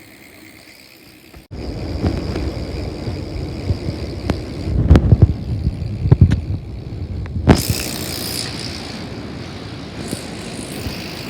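Mountain bike being ridden while its gears are tried out: a rumbling with several sharp clunks around the middle, then a steadier hiss.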